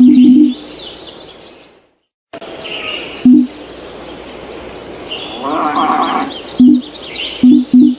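Birds chirping in a background ambience track, broken by short, loud low-pitched blips: two near the start, one at about 3 s, and a few more from about 6.5 s on. The sound cuts out completely for a moment just before 2 s.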